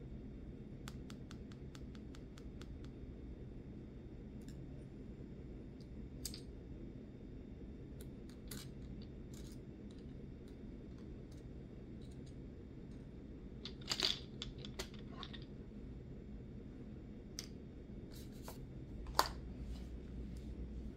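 Small clicks and taps of plastic nail-swatch sticks and polish bottles being handled, with a quick run of light ticks a second or so in, a louder clatter about two-thirds of the way through and a sharp click near the end.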